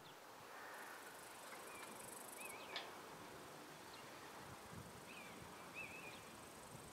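Near silence: quiet outdoor ambience with a few faint, short warbling bird chirps, one group about two seconds in and another about five and a half seconds in.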